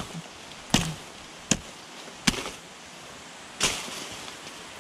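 A large blade chopping through brush and saplings to clear a trail: four sharp swishing strikes at uneven intervals.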